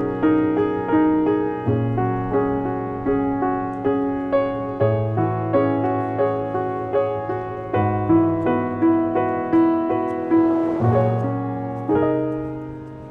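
Background piano music: a gentle repeating figure of notes, about two a second, over held bass notes, with a soft swell near the end before it fades.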